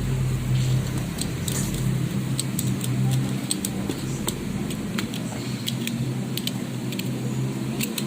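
A steady low motor-like hum with many short, sharp clicks and taps scattered through it; the hum eases off about five seconds in.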